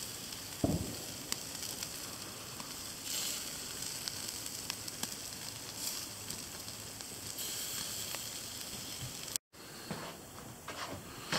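Venison burgers sizzling on a barbecue grill: a steady hiss with faint pops and crackles that swells a couple of times. A brief soft thump comes near the start.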